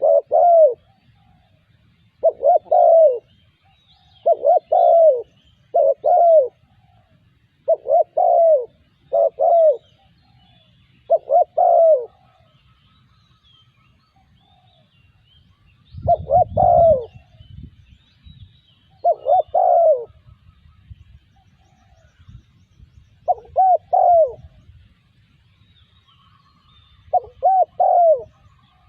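Spotted dove cooing: short phrases of two or three soft, arching notes, repeated every few seconds with a pause of about four seconds midway. A brief low rumble sounds under one call about halfway through.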